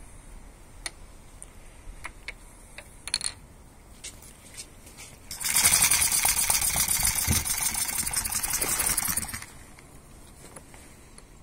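A single-cylinder four-stroke model spark-ignition engine catches about five seconds in and runs fast with a rapid clatter for about four seconds, then cuts out. Before it fires there are scattered light clicks as the flywheel is flicked over by hand.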